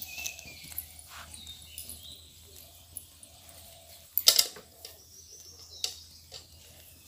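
Birds chirping in short, repeated calls, with a sharp clattering knock about four seconds in and a smaller knock near six seconds.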